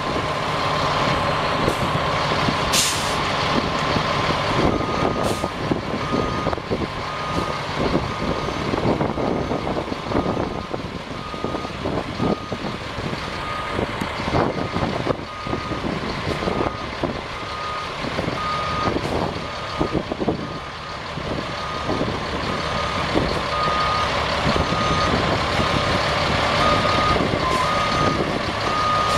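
Sterling LT8500 dump truck's Caterpillar 3126 inline-six turbo diesel running as the truck manoeuvres. A short air-brake hiss comes about three seconds in. A backup alarm then beeps about once a second from about five seconds in.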